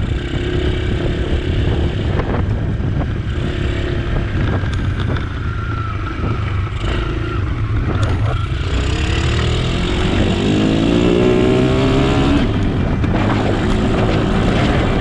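Motor vehicle engine running with steady road and engine rumble; an engine note rises and then falls between about nine and thirteen seconds in.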